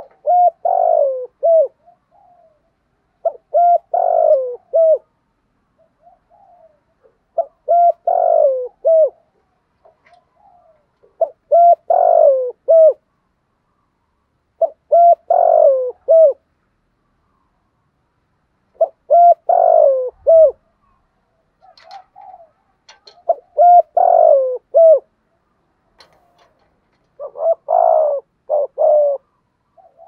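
Spotted dove cooing its song: a phrase of three or four coos with a long falling middle note, repeated eight times about every four seconds.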